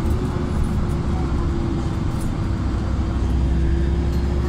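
Inside a LiAZ 5292.67 city bus running on its YaMZ-53624 compressed-natural-gas engine: a steady low rumble with a thin whine that climbs slowly in pitch.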